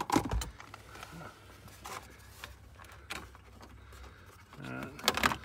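Flathead screwdriver prying a flasher relay out of its plastic socket under the dash: sharp clicks and knocks of metal on plastic, loudest just after the start and again near the end, with a few lighter clicks in between.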